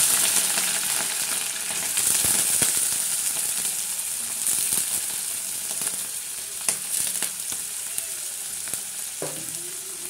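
Chopped carrots, green peas and beans sizzling in hot oil just after being tipped into the kadai, the hiss loudest at first and slowly dying down. A few light clicks of the steel bowl and spatula against the pan come in the second half.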